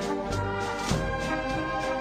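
Brass band music with a steady drum beat, played like a military march.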